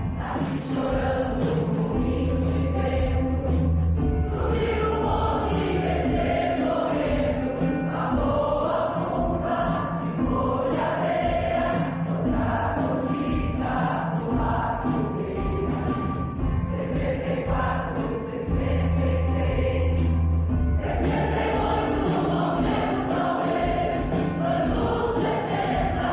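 Choir singing a piece of music, with held low notes underneath twice.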